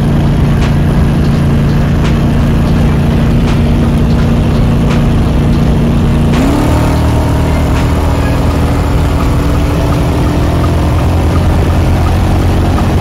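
Hot-rod car engine running steadily at a constant speed. About halfway through, its pitch steps up and holds at the higher note as the engine speeds up.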